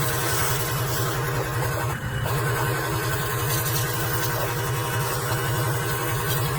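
An engine running steadily at idle, with a low, even pulsing hum.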